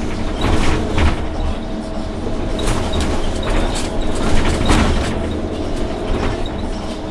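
Orion VII NG CNG transit bus with a Cummins ISL-G natural-gas engine and Allison B-400R transmission running while under way, heard from inside the cabin, with repeated rattles and knocks from the body and fittings over the road.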